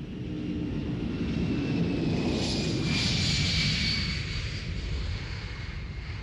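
Boeing 747 jet engines running as the airliner taxis close by: a deep rumble with a high whine that swells to a peak about three seconds in and then eases off.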